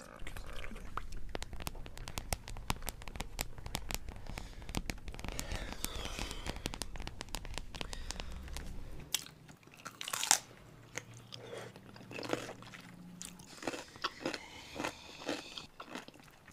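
Close-up crunching: a dense run of sharp crunches over a low hum for about nine seconds, then sparser separate crunches, the loudest about ten seconds in.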